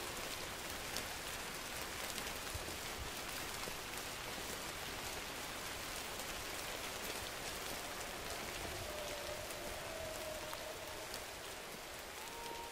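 Steady rain falling, with the patter of many drops. A faint, drawn-out wolf howl sliding slowly down in pitch comes about two-thirds of the way through, and another faint howl starts near the end.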